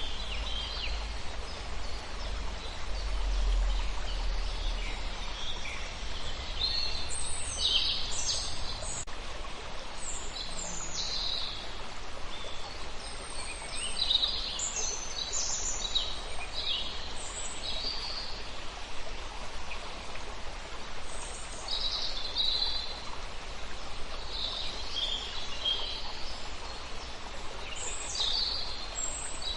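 Wild birds chirping and calling repeatedly over a steady rush of running water.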